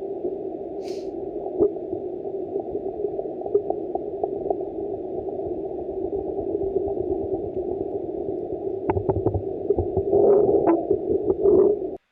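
Homemade underwater sound effect: a single recording processed with compression, a little distortion and a low-pass filter, heard as a muffled, gurgling wash with scattered clicks and pops. It swells louder near the end, then cuts off abruptly.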